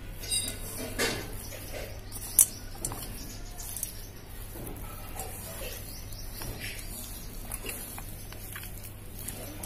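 A bare hand squeezing and turning raw chicken pieces in a wet spice marinade in a stainless steel bowl: soft, irregular squelching with light knocks against the bowl, and one sharp click about two and a half seconds in.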